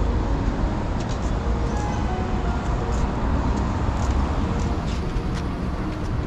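Steady low rumble of a vehicle in motion, with no change in pace, and a few faint ticks over it.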